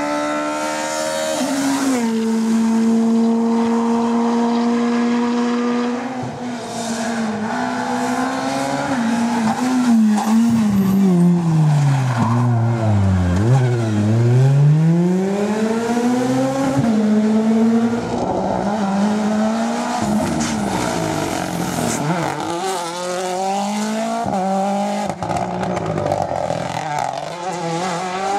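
A World Rally Car's 1.6-litre turbocharged four-cylinder engine at rally pace. It holds a steady high note, then the revs fall low about halfway through and climb again, with a run of rising sweeps near the end as it pulls through the gears.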